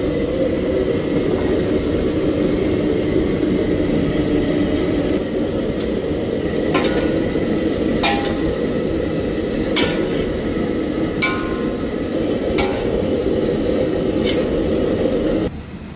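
Chicken and vegetables stir-frying in a large steel wok over a gas burner, with a steady low roar. In the second half the metal spatula strikes and scrapes the wok about six times. The roar cuts off suddenly near the end.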